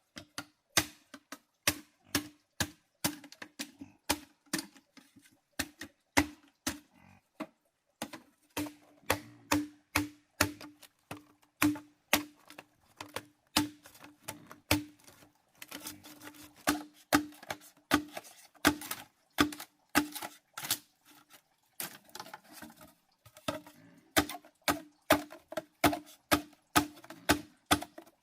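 Repeated chopping strokes, roughly two to three sharp knocks a second with a short low ring on each, pausing briefly about a third of the way through: a blade striking a wooden surface.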